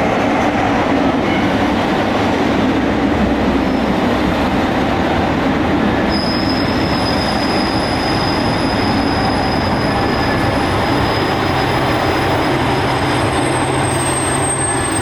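Super Hakuto diesel express train pulling into a station platform, its cars rumbling steadily past close by. From about six seconds in, a thin high squeal runs on over the rumble.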